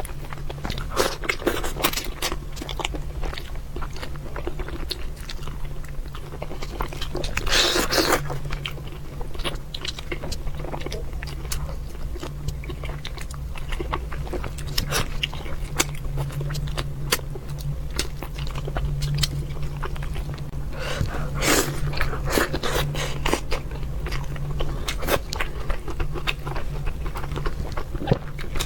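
Close-miked eating: a person chewing and crunching fish with many small wet clicks and crackles and a few louder bites, over a steady low hum.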